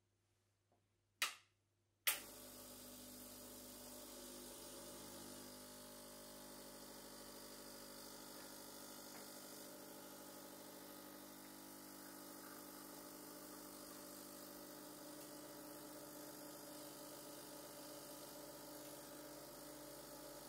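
Two sharp clicks, and with the second the Gaggia Classic Pro espresso machine's vibratory pump starts and runs with a steady hum while pulling an espresso shot.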